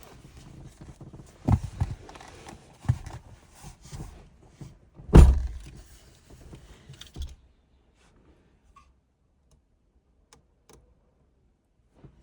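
Thumps and knocks of someone climbing into a pickup truck's cab, the loudest a heavy door-like thump about five seconds in. A rustling hiss runs under them and stops about seven seconds in, leaving near quiet with a few faint ticks.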